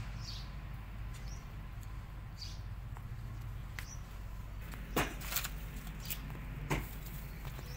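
Outdoor ambience: a few faint, short, high chirps in the first half, then several sharp clicks from about five seconds in, over a steady low hum.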